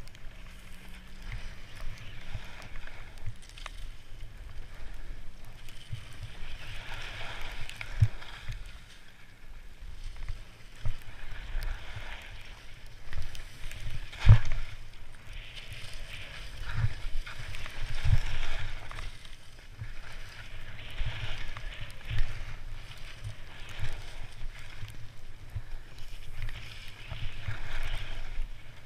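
Skis scraping and hissing over snow, swelling with each turn, while wind buffets the camera microphone with a steady low rumble and scattered thumps. A sharp knock about halfway through is the loudest sound.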